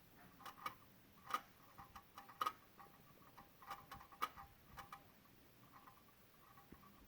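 Faint, irregular clicking from the area of the PCM and VSA control module of a 2016 Honda Odyssey with the engine off. The clicking goes with the check-engine, VSA, LDW and FCW warning lights being on. A few clicks stand out louder in the first half and fade to lighter ticking near the end.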